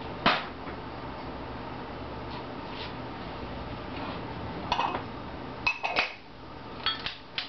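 Dishes and kitchen utensils clinking and knocking as ingredients are handled: scattered sharp clinks, the loudest just after the start and a quick cluster about six seconds in, over a steady faint hum.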